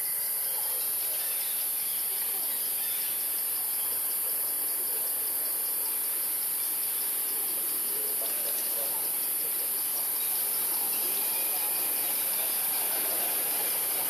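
A steady, high-pitched chorus of forest insects that runs without a break.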